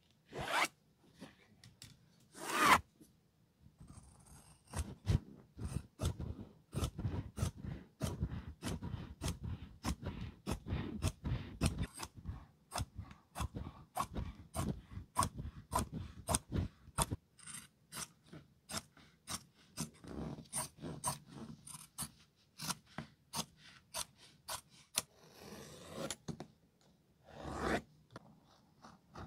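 Large tailor's shears snipping through lining fabric, a steady run of sharp cuts about two a second. A few louder knocks come near the start and near the end.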